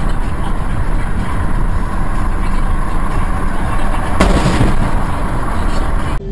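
Loud, steady vehicle rumble with a single sharp bang about four seconds in.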